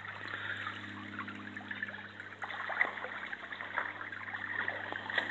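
Shallow creek water trickling over gravel and a sifter screen, with light ticks of pebbles.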